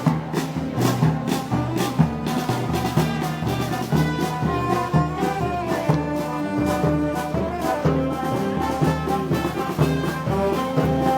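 Brass band playing Moros y Cristianos festival music: held brass notes over a steady drum beat.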